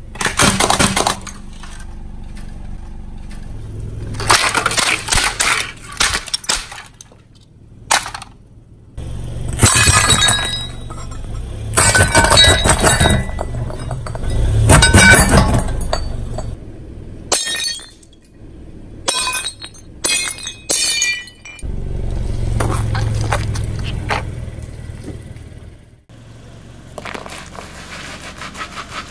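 A car tyre rolling slowly over objects and crushing them, in repeated bursts of cracking and crunching. Around the middle, glazed ceramic piggy banks crack and shatter under the tyre, and near the end a green vegetable squashes flat.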